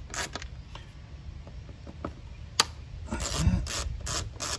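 Ratcheting screwdriver backing out a Phillips screw from a mass airflow sensor: a run of even clicks, about four a second, that pauses for about two seconds with one sharp click, then starts again.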